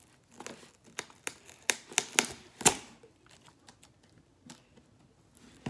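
A run of sharp, irregular clicks and taps, about ten in the first three seconds and fainter ones after, as a metal fork picks and chops at the side flap of a cardboard box.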